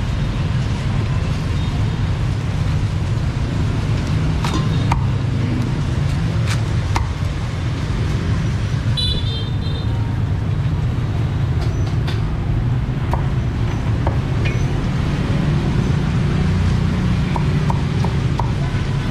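Cleaver chopping roast pork on a thick wooden chopping block, a few sharp chops scattered through, over a steady low rumble of street traffic. A brief high horn toot about nine seconds in.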